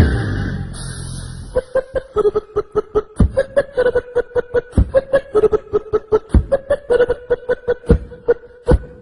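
Vocal beatboxing: a noisy vocal effect fading over the first second and a half, then a fast, even rhythm of mouth-made clicks and kicks over a steady held note.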